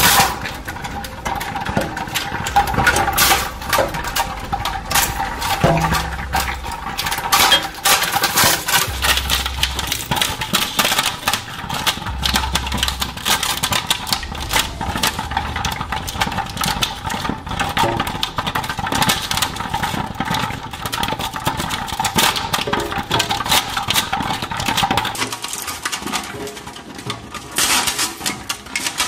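Twin-shaft shredder running with a steady motor whine, its cutter discs cracking and crunching irregularly as they bite into a soft plastic toy ball, with occasional heavier thuds. The whine stops a few seconds before the end, leaving only the crackling.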